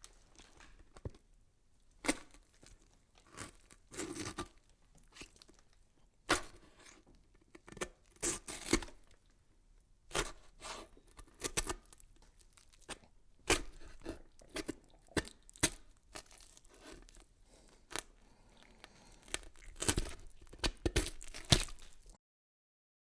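Irregular crackling and rustling, like something being crumpled or torn, coming in uneven bursts with a few louder cracks. It cuts off suddenly near the end.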